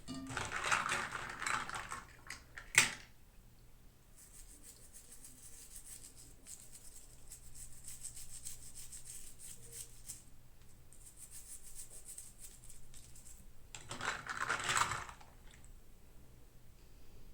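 Hands handling and opening toy packaging: crinkling plastic and cardboard in short bursts, with one sharp click about three seconds in and a fainter crackle through the middle.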